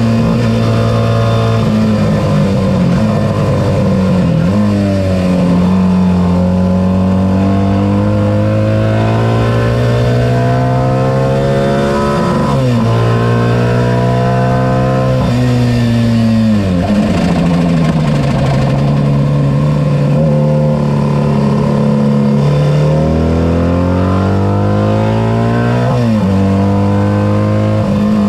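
Racing sidecar outfit's engine heard from onboard at full race pace, the note climbing through the revs and breaking sharply at each gear change, dropping back under braking before pulling up again.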